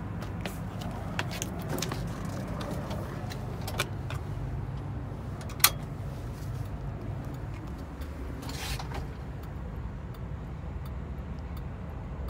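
Tiger TIG50 baggage tractor's propane (LP) engine running steadily at idle, heard from the cab. Over it come clicks and a key jangling at the dash key switch, with one sharp click about halfway through.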